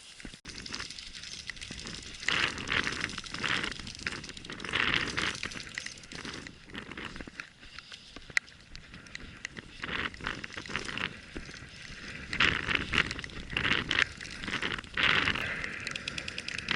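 Irregular crunching and rustling, coming in bursts of about a second each, with a few sharp clicks among them.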